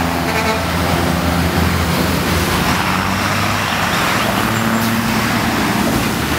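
Street traffic in which a diablo rojo, a converted school bus, drives close past with its engine running. The noise swells in the middle as it goes by, then eases, over the hum of other passing vehicles.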